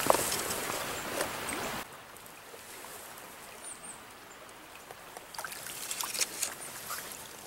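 Shallow stream water rushing and trickling around a hand held in the current, with a few small splashes as a trout is let go. The water noise drops sharply about two seconds in.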